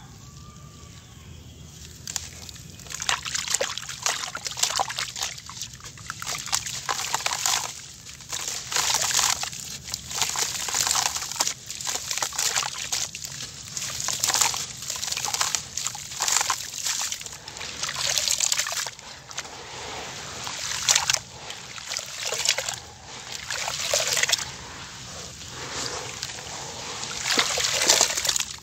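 Gritty clumps of dried mud crumbled by hand and trickling into a basin of water, with sloshing and splashing as the hands squeeze wet lumps. The crumbling comes in repeated surges every second or two, starting about two seconds in.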